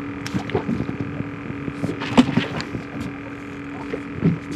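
Muffled underwater sound through a GoPro in its waterproof case: a steady low hum with scattered clicks and knocks, a brief cluster of louder knocks about two seconds in.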